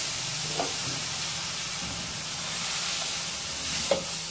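Shredded vegetables sizzling in a hot aluminium pot, a steady hiss, with two light knocks of a plastic spatula against the pot, about half a second in and near the end.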